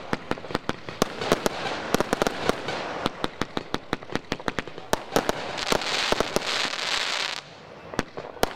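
Fireworks firing in rapid succession: a quick, uneven run of sharp bangs and bursts, several a second. Past the middle a loud hiss rises and cuts off suddenly, and a few scattered bangs follow.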